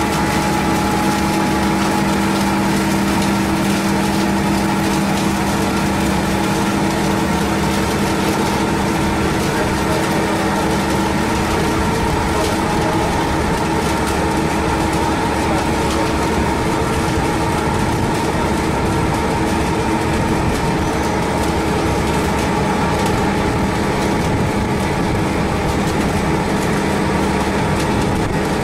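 Steady, loud hum of industrial plant machinery at a biomass gasifier installation, several held tones over a dense mechanical noise, with no change in pace or pitch.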